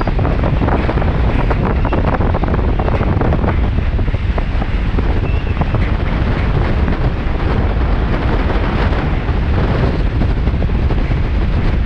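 Strong wind buffeting the phone's microphone, a loud, steady rumble with no separate events.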